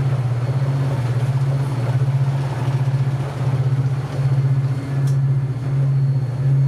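Tugboat's diesel engine running hard under way, a steady low drone with a fast, even throb, with a rushing hiss over it.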